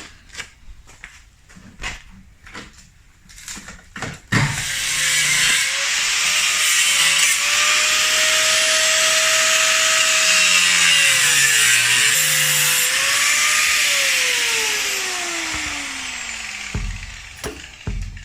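A power cutting tool slicing through rusted rocker-panel sheet metal: a loud, harsh cutting noise starts about four seconds in, with the motor's pitch sagging and recovering as it loads up. Near the end the motor winds down in a falling whine. Scattered knocks and clicks come before the cut.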